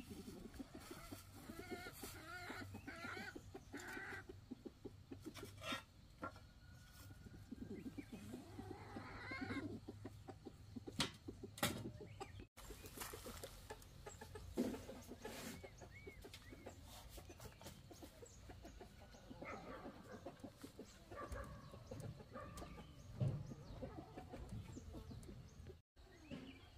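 Chickens clucking and calling, with a few sharp knocks along the way.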